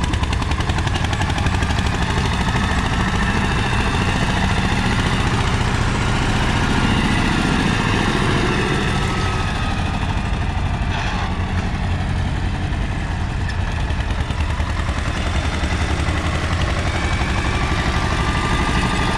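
Mahindra 235 DI tractor's diesel engine running steadily under load as it pulls a nine-tine cultivator, a fast, even chugging beat from the exhaust.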